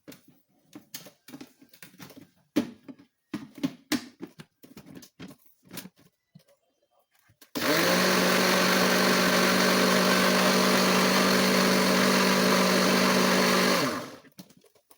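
A series of scattered clicks and knocks, then, about seven and a half seconds in, an electric blender starts and runs at a steady pitch for about six seconds, blending a lemon, yogurt and water mixture, before stopping abruptly.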